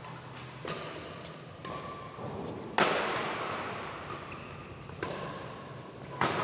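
Badminton rackets striking a shuttlecock during a doubles rally: five sharp hits about a second apart, the loudest about three seconds in, each echoing around a large hall.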